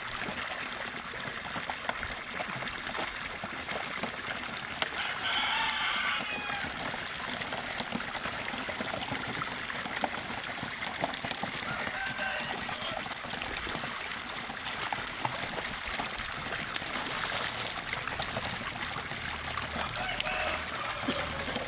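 Water from a spout running steadily into a fish pond, with a rooster crowing once about five seconds in and fainter fowl calls later.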